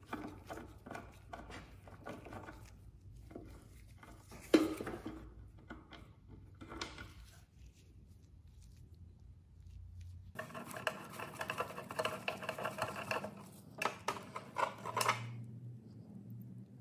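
Screwdriver working loose the screw of a brass drawer pull on an old wooden drawer: small metal clicks and scrapes, a sharp knock about four and a half seconds in, then a busier run of ringing metallic clinks as the screw and brass backplate come free in the hand.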